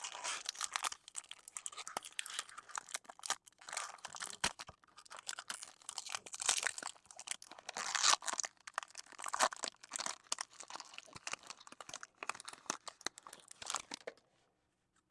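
Foil wrapper of a trading-card pack being torn open and crumpled in the hands: a dense, irregular crackling and crinkling that stops about a second before the end.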